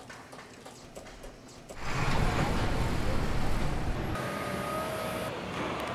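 City street traffic noise. It is faint at first, rises sharply to a loud rumble about two seconds in, and a steady pitched tone joins over it about four seconds in.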